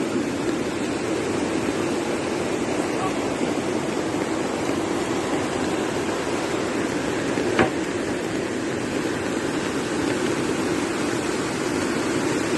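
Floodwater rushing steadily, a loud continuous gushing roar, with one short knock about two-thirds of the way through.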